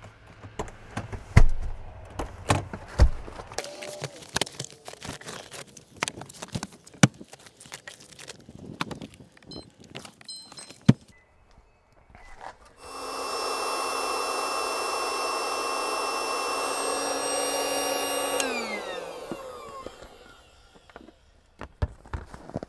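Knocks, clicks and rustling as a vinyl SUV air mattress is unfolded in a car's cargo area and its pump is fitted. About halfway through, the mattress's 12-volt electric air pump starts and runs steadily with a whine for about five seconds, inflating the mattress. It then winds down with a falling pitch as it is switched off.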